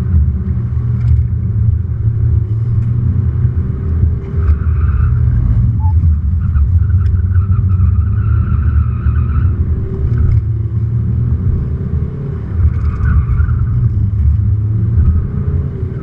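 Volkswagen Golf TDI's four-cylinder turbodiesel engine rising and falling in pitch under hard driving, heard from inside the cabin over loud road rumble. Tyres squeal several times in hard cornering, longest about halfway through.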